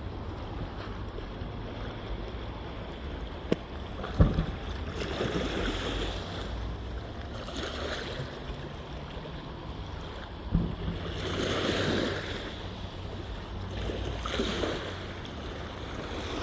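Water sloshing and lapping in swells against a boat, with wind rumbling on the microphone. A few sharp knocks, the loudest about four seconds in and another about ten and a half seconds in.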